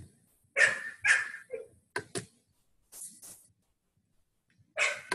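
A dog barking, about eight short barks in small groups with pauses between.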